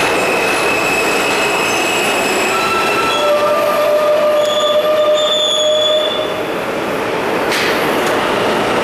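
R160 subway train moving through a station, its steel wheels squealing on the rails over a loud, steady rumble. Several high, held tones come and go at different pitches.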